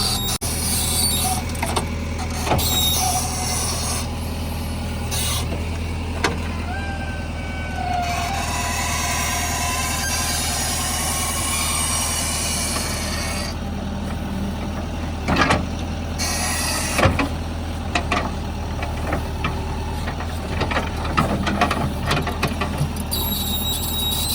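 JCB 3DX backhoe loader's diesel engine running steadily while working, with a brief whine about seven seconds in and a few sharp knocks and clanks in the second half.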